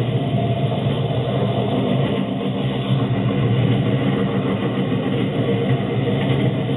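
Engine of a Suzuki Samurai converted into a rail cart, running steadily as the cart rolls along the rails. It is heard close up from just above the open engine bay.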